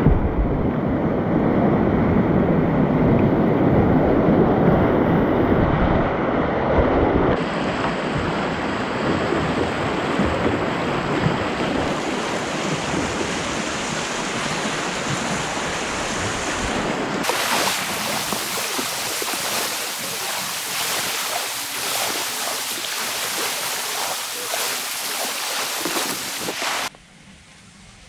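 Whitewater rapids rushing loudly around a whitewater kayak, heard from a camera mounted on the boat. Then a brighter, hissing splash of water around the kayak's bow on flatter water. The sound cuts off suddenly near the end.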